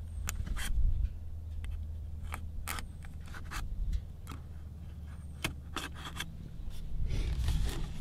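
A knife tip stabbing and scraping at the foil seal in the neck of a plastic antifreeze jug: a run of short, sharp scratchy clicks, with a longer scraping stretch near the end.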